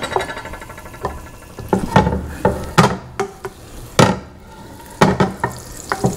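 Butter melting in hot oil in a preheated frying pan, with a light sizzle, while a utensil knocks and scrapes against the pan about a dozen times at an irregular pace, some knocks ringing briefly.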